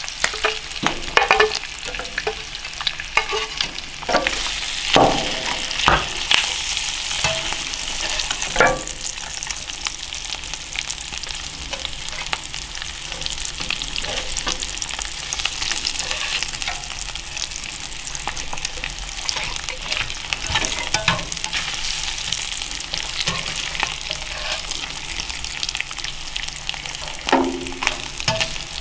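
Venison steaks and onions sizzling in pork fat in cast iron pans on a wood stove, a steady hiss throughout. A metal spatula and fork scrape and knock against the cast iron as the food is turned, with clicks most frequent in the first nine seconds and again near the end.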